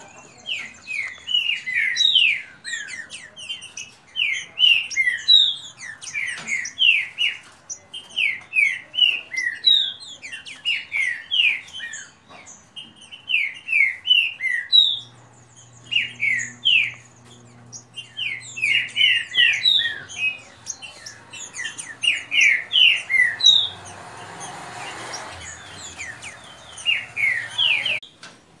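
Caged green-winged saltators (trinca-ferro) countersinging in a song contest: fast phrases of short, sweeping whistled notes in bursts of a second or two, one after another with brief pauses.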